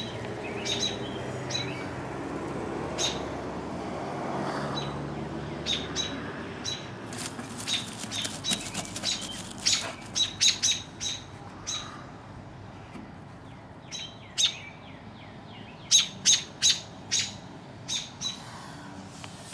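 American robins calling with short, sharp chirps, scattered at first and then in quick runs of several notes.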